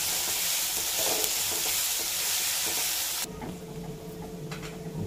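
Chopped onions sizzling in hot oil in a nonstick wok as they are stirred. About three seconds in, the loud sizzle cuts off abruptly, leaving a quieter, fainter frying over a steady low hum.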